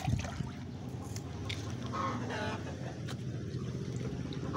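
Chickens clucking in short calls, mostly in the middle, over a steady low rumble.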